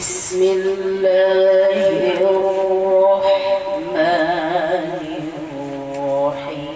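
A woman reciting the Qur'an in the melodic, chanted style, holding long drawn-out notes, with a wavering ornamented run about four seconds in.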